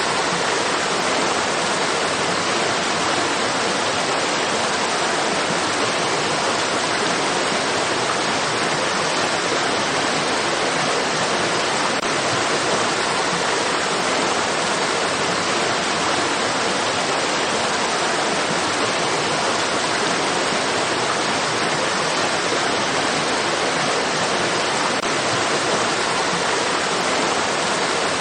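Flowing stream water rushing in a steady, even hiss with no separate splashes or gurgles.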